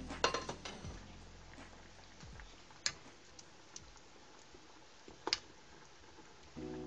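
Kitchen utensils clinking against a pot in the kitchen: a quick cluster of sharp clinks in the first second, then two single clinks about three and five seconds in, over a faint steady hiss.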